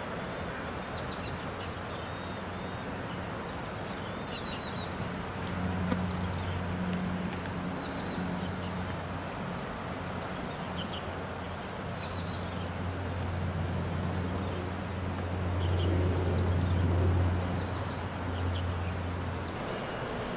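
Outdoor ambience with a steady hiss and short bird chirps repeating throughout, while a distant engine's low drone comes in about five seconds in, grows louder near sixteen to seventeen seconds, then stops shortly before the end.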